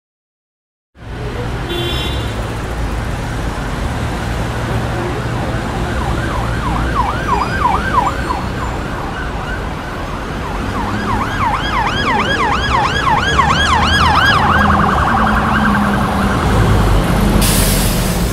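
Emergency vehicle siren in a fast yelp, rising and falling about five times a second. It starts partway in, fades briefly, comes back and switches to a faster warble near the end, over a steady low rumble of city traffic.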